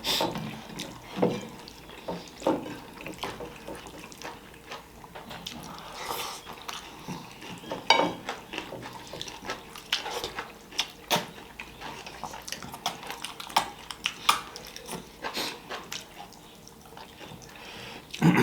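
Eating sounds at a meal: scattered clinks on a plate and short wet mouth sounds, irregular throughout.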